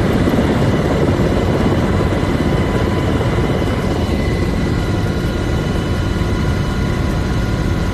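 Aircraft turbine engines and rotors or propellers running steadily in flight, a dense continuous noise with a few faint steady whining tones above it.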